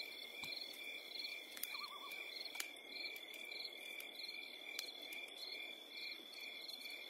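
Faint night ambience of crickets: a steady high trill with short chirps repeating two or three times a second above it. A brief warbling call comes about two seconds in, and faint scattered clicks run throughout.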